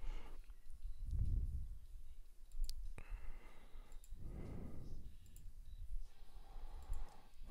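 A few sharp clicks from a computer mouse and keyboard, with soft breathing into the microphone between them.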